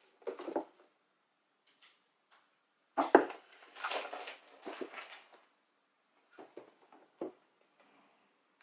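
Long shrink-wrapped cardboard boxes being handled and moved on a wooden table: a sharp knock about three seconds in, followed by a couple of seconds of rustling and scraping, with a few lighter taps near the end.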